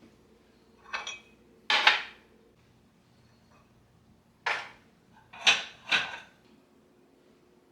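Dishes or kitchenware being handled: five short clatters, two in the first two seconds and three close together between about four and a half and six seconds in.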